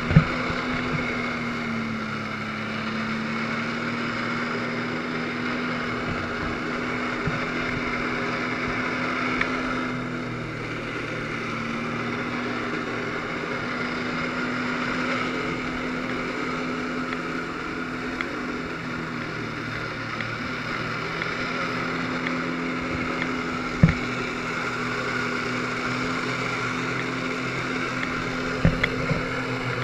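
Jet ski engine running steadily with a low hum over rushing water, broken by a few sharp knocks: one right at the start, another about two-thirds of the way through and two near the end.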